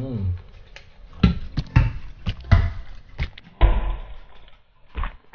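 Close-up eating sounds of crispy fried chicken being bitten and chewed: a series of sharp crunches and wet mouth smacks about every half second, with one longer crunchy chew near the end.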